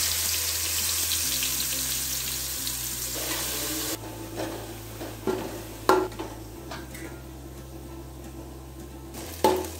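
Sliced onions sizzling in hot oil and ghee in an aluminium pot: a loud sizzle that drops to a quieter fry about four seconds in. A slotted spoon stirring and lifting the fried onions knocks against the metal pot a few times.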